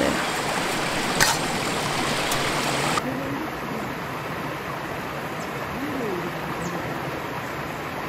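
Steady rushing of a shallow mountain stream running over rocks, dropping slightly in level about three seconds in.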